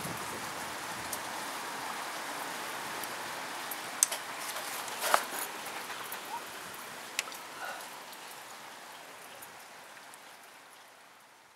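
Steady rain falling after a thunderstorm, with a few sharp taps of drops close by, and the sound fading out near the end.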